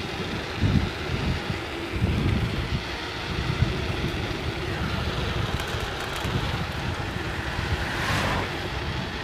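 Wind buffeting the microphone of a camera carried on a moving bicycle: a steady rushing noise with irregular low gusts.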